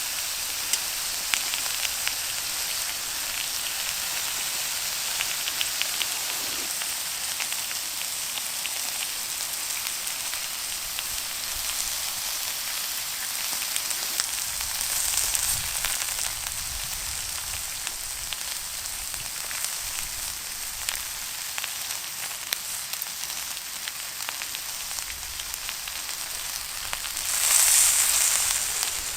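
Beef ribs sizzling over an open wood fire: a steady hiss dotted with small crackles and pops, swelling into a louder hissing surge shortly before the end.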